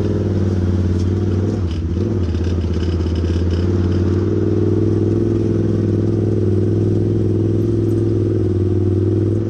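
Off-road vehicle engine running at a steady speed, with the vehicle rattling briefly about two seconds in.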